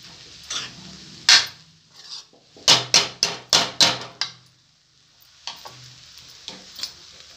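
A steel spoon stirs poha in a metal kadai, scraping and clinking against the pan. There is a quick run of about six sharp strokes in the middle.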